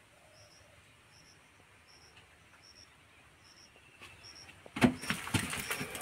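Mostly quiet, with a faint, high double chirp repeating a little more than once a second. In the last second or so, louder rustling and a few knocks.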